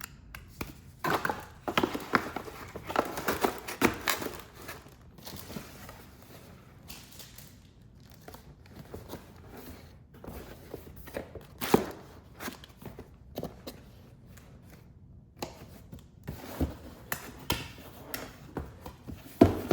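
Cardboard and paper packaging being handled: rustling and crinkling in spells, with scattered light knocks. There is a sharp knock about twelve seconds in and a louder one near the end.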